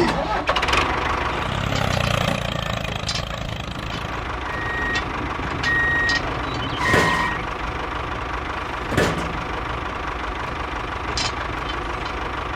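A vehicle engine running steadily, with three short high beeps in the middle and two sharp knocks, the first about seven seconds in and the second about two seconds later.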